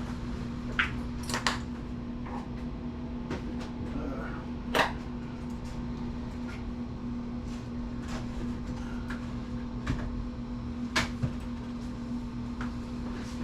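Parts of a desktop computer being handled during teardown: scattered clicks and knocks of metal and plastic, the sharpest about five and eleven seconds in, over a steady low hum.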